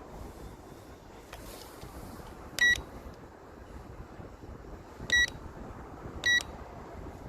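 Three short electronic beeps at one steady high pitch, spaced irregularly, over a continuous rumble of wind buffeting the microphone.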